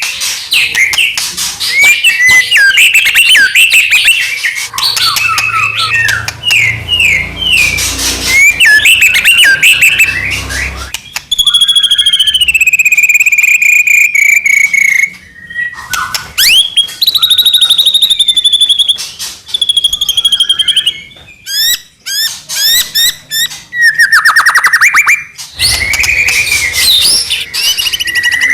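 White-rumped shama (murai batu) singing continuously in full song: a rapid, varied run of clear whistles, fast trills and chattering notes, with a long falling whistle about halfway through.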